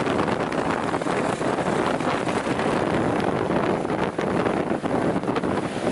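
A steady rush of wind on the microphone of a camera riding on a moving motorcycle, mixed with motorcycle engine and road noise.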